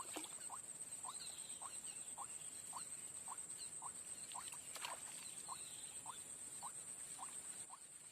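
Swamp night chorus: a frog gives short calls in a steady rhythm about twice a second over a constant high-pitched insect drone. There is a sharp click about five seconds in.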